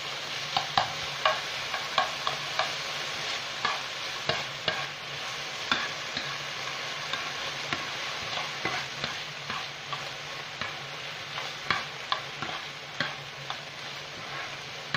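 Diced chicken breast sizzling in a nonstick frying pan, with a metal spoon stirring the pieces and scraping and knocking against the pan in frequent sharp clicks.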